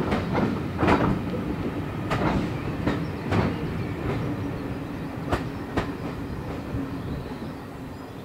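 Passenger coaches rolling away on the track, their wheels clicking over rail joints in uneven pairs over a steady rumble. The sound fades as the train draws off.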